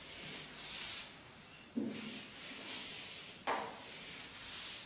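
Whiteboard duster wiping across a whiteboard in repeated rubbing strokes, with two sharper strokes about a second and a half apart.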